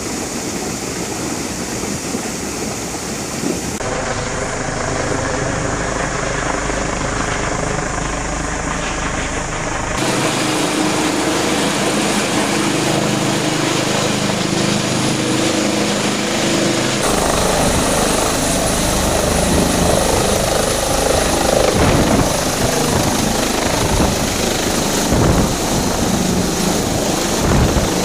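Helicopter running steadily, its rotor and engine making a loud, even drone with a steady hum in it. The character of the noise changes abruptly three times.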